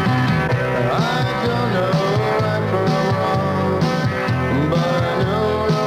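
Roots-rock band playing a country-tinged rock song, with guitars and drums and a singer's voice over them.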